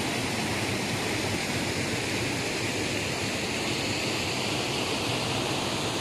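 Waterfall: falling water rushing steadily, an even noise with no breaks.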